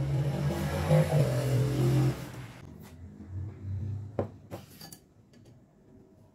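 Eating noisily from a bowl held to the mouth with chopsticks, loud slurping and mouth sounds for about two and a half seconds. Then a few sharp clicks of chopsticks and the bowl on the table, about four to five seconds in.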